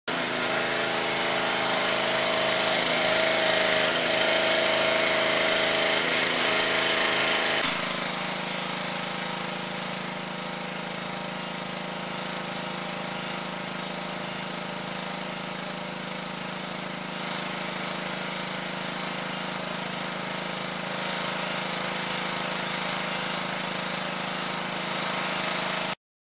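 Pressure washer running steadily, a constant machine drone with hiss. About eight seconds in it drops a little in level and changes tone, and it stops abruptly near the end.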